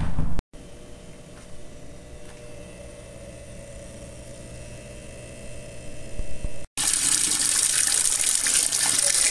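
Running water: a faint steady hum, then, after an abrupt cut about seven seconds in, a loud, steady rush of water.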